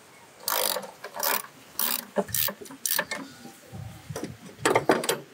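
Hand socket ratchet clicking in a run of short back-and-forth strokes, about six in a few seconds, as the last valve cover screw is backed out.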